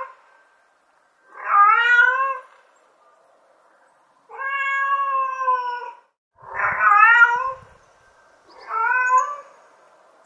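A mother cat meowing four times to call her kittens, each call about a second or more long with short pauses between; the second call is held longer and steadier.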